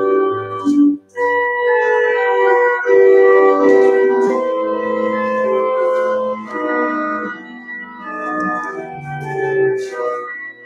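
Organ music: slow, sustained chords, with a short break about a second in.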